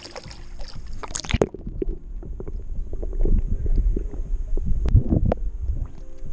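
Water sloshing against a camera dipped into shallow water: a muffled, loud low rumble with scattered clicks and knocks. It starts about a second and a half in.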